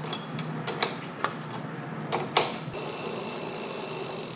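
Sharp metal clicks and knocks from a wrench tightening a bicycle pedal into the crank arm. Then, a little past halfway, a fast, steady, even mechanical whir-ticking starts and holds to the end.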